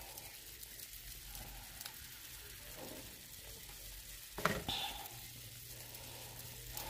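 Pot of water boiling on an electric stove under a glass measuring cup of melting candle wax, giving a steady sizzling hiss. A brief knock about four and a half seconds in.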